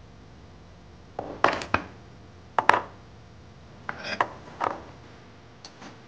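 Small cast metal ingots being picked with metal tweezers and set down on a wooden tabletop, clicking and knocking in short clusters. The loudest knocks come at about one and a half and nearly three seconds in, with a few lighter taps near the end.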